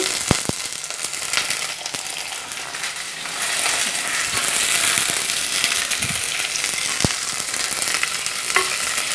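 Shallots, green chilli and curry leaves sizzling in hot oil in a pan as they are stirred, with a few sharp clicks; the sizzle grows louder a few seconds in.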